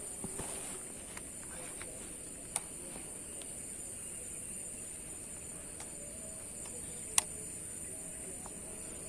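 Steady high-pitched chirring of insects. A few sharp clicks stand out, the loudest about seven seconds in.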